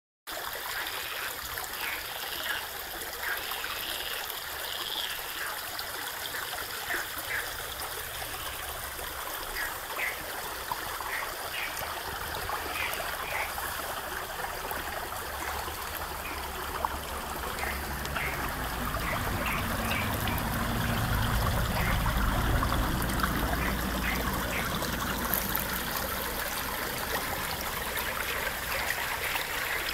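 Shallow stream trickling and gurgling through reeds, with short high calls scattered throughout. The water grows louder and fuller about two-thirds of the way through.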